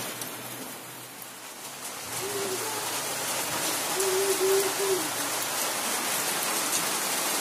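Steady rain falling, a hiss that swells over the first couple of seconds and then holds. Two short steady low tones rise over it, the second about a second long.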